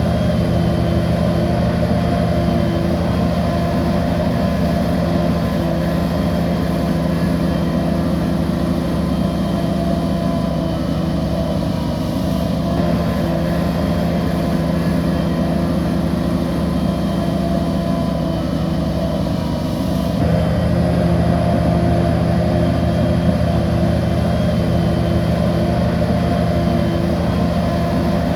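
Heavy diesel engine of a bulldozer running steadily while working. About two-thirds through the level dips briefly, then the engine runs a little louder.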